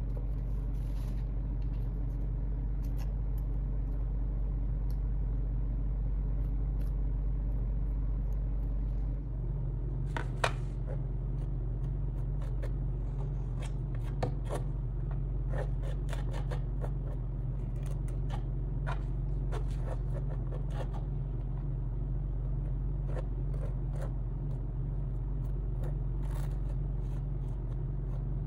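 Steady low background hum, with scattered light clicks and scrapes from about ten seconds in.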